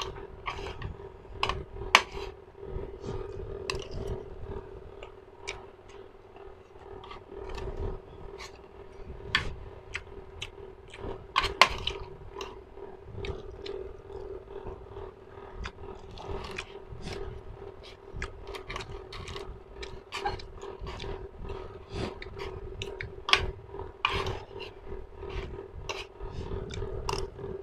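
Close-miked eating sounds: irregular wet clicks of chewing, with a metal spoon tapping and scraping against the dish, over a steady low hum.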